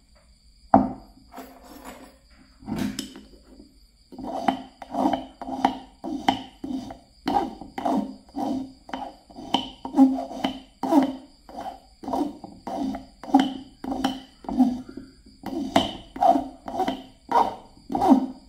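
A flat metal file stroked over a small piece of copper wire held against a wooden block, filing the wire into a fishing hook. After a couple of sharp clicks, the rasping strokes start about four seconds in and repeat about twice a second.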